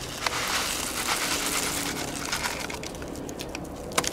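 Dry rice and beans pouring from a pouch into a pot of boiling water: a steady rushing pour sprinkled with many small ticks of grains landing, with a few sharper clicks near the end as the pouch is shaken out.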